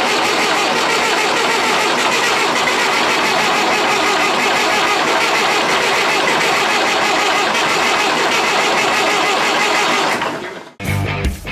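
Perkins diesel engine of a Chamberlain R1250 tractor crane running steadily. It fades out near the end, where rock music begins.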